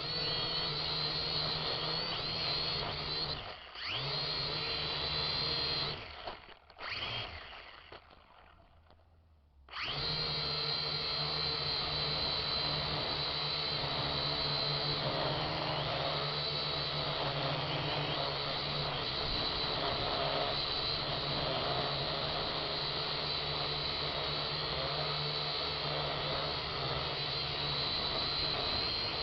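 Syma X7 quadcopter's motors and propellers whining steadily at high power. The whine drops away briefly a few seconds in, stays low for a few seconds, then comes back at full power about ten seconds in and holds steady, as the throttle is adjusted against gusty wind.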